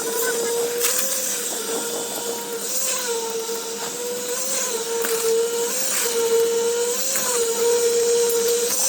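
A construction machine's motor running steadily with a whine that swells slightly about once a second, with a few faint clicks.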